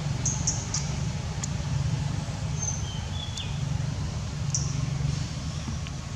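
Outdoor ambience: a steady low rumble throughout, with a few short, high bird chirps scattered across it.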